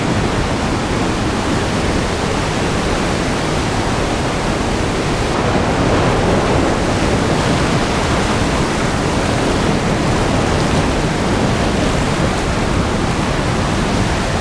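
Powerful snowmelt-fed mountain river rushing, a loud, steady sound of water.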